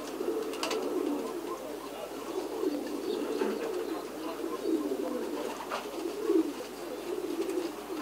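A flock of domestic fancy pigeons cooing, many low coos overlapping without a break.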